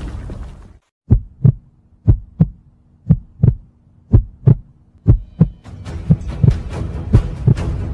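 Heartbeat sound effect: low thumps in pairs, lub-dub, about once a second, over a faint steady hum. It begins about a second in, after a brief silence, and a rising rush of background noise builds under it near the end.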